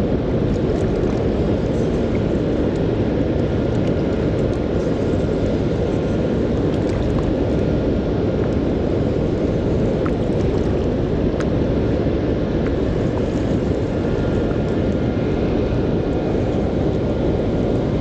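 Water pouring over a river spillway dam: a steady, deep, even rush of falling water that does not change.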